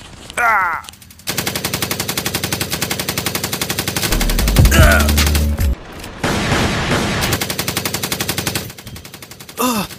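Dubbed-in machine-gun sound effects: long, rapid, even bursts of automatic fire, with a deep boom about four seconds in and short shouts of soldiers.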